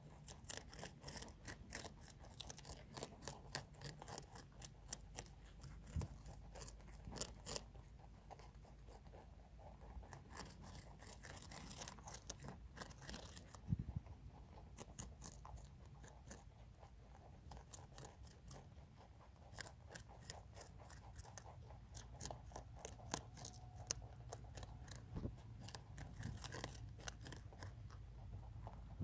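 Rabbits chewing raw red cabbage: rapid, crisp crunching in runs of quick clicks, pausing now and then between runs.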